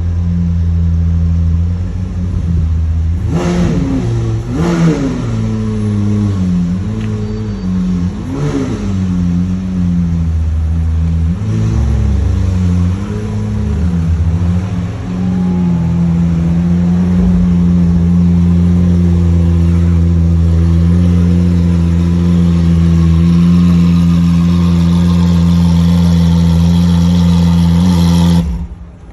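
Lamborghini V12 engine idling, then blipped several times in the first half, each rev rising and falling back. It then holds a steady raised engine speed for about twelve seconds and cuts off suddenly near the end.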